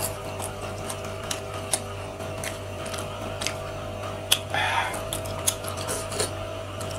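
Close-miked eating sounds: wet mouth clicks and smacks of chewing seafood, scattered all through, with a brief noisy burst about four and a half seconds in as a clam is taken from the soup bowl.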